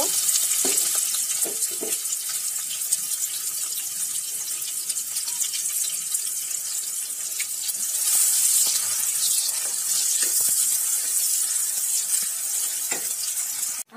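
Sliced onions sizzling steadily as they fry in hot mustard oil in a nonstick wok, with a few light scrapes and taps of a wooden spoon stirring them.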